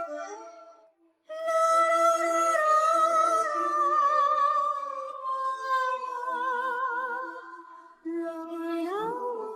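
A cappella female vocals, several voice parts holding long chords, one line with a wide vibrato near the middle. The singing breaks off briefly about a second in and again near the end, then a new chord swells up.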